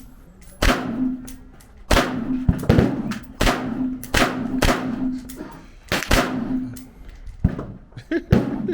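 An AR pistol firing, about half a dozen very loud single shots at uneven intervals, with fainter shots in between.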